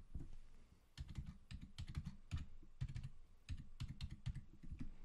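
Faint typing on a computer keyboard: a quick, uneven run of keystrokes starting about a second in.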